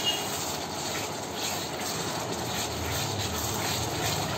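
Tomato puree and spice masala frying in hot mustard oil in a steel kadhai, a steady sizzle as it is stirred with a wooden spatula.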